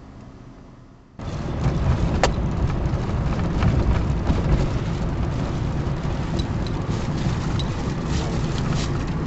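Road and wind noise of a car driving on a wet road, heard from inside the car: a loud, steady rush that starts abruptly about a second in, with a sharp click about two seconds in.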